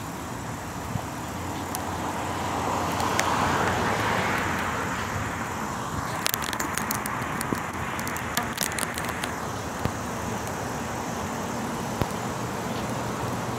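Street traffic noise: a car passes, the sound swelling and fading with its loudest point about four seconds in, followed by a scattering of small crackling clicks.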